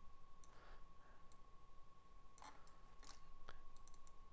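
Faint computer mouse clicks, a handful of scattered single clicks, as nodes are placed and dragged in a drawing program.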